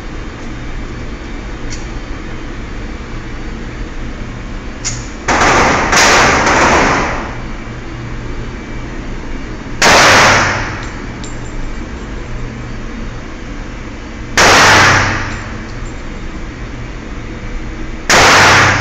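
Semi-automatic pistol fired five times in an indoor range: two shots close together about five seconds in, then single shots roughly every four seconds, each echoing off the walls. A steady low hum runs underneath.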